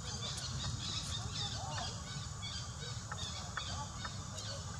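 Many short chirping and squeaking animal calls, some high and some lower, with a few sharp clicks over a steady low rumble.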